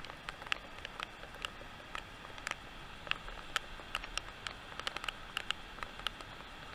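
Steady rush of water spilling over a low river dam, with scattered sharp clicks and ticks at irregular intervals, several a second.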